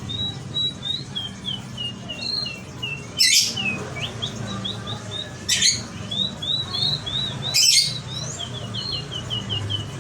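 Domestic canary singing: a fast string of short, down-slurred chirps at several per second, broken three times by a loud, harsh burst. A low steady hum lies underneath.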